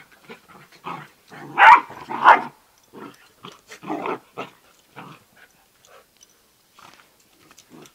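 A Bernese mountain dog puppy and a Yorkshire terrier barking as they play-fight: two loud barks close together about two seconds in, another about four seconds in, and shorter, quieter yaps and growls between.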